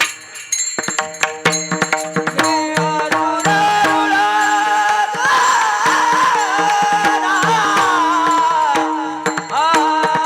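Varkari kirtan music: mridang drum strokes lead for the first few seconds, then a sung melodic line comes in, held and bending in pitch, over a steady drone and continuing mridang beats.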